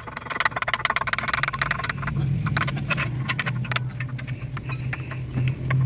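Hand tools and metal engine parts clinking and rattling as a main bearing cap is taken off a diesel engine's crankshaft. A steady low engine hum comes in about two seconds in.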